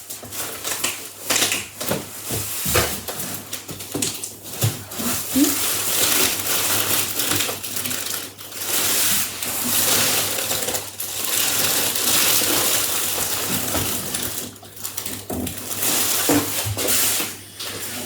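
Packaging being handled around a heavy boxed 3D printer: scattered knocks and clatters, then long stretches of rustling and scraping of box and wrapping.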